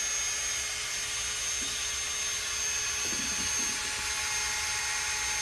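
A motor-driven machine running steadily: an even hiss with a few fixed whining tones held throughout.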